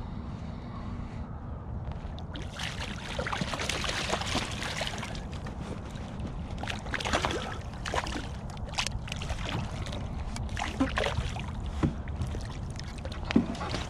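Hooked coho salmon thrashing at the surface beside a kayak, with a run of sharp splashes in the second half, the loudest near the end. A low wind rumble runs underneath.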